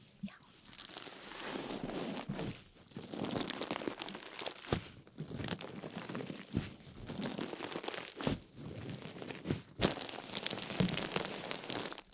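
Crinkling and crunching, coming in bouts broken by short pauses, with scattered sharp clicks.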